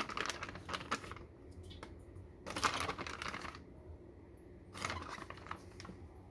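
Light clattering and rustling of kamias (bilimbi) pieces being tipped and handled into a dish of fish, in three short bursts about two seconds apart.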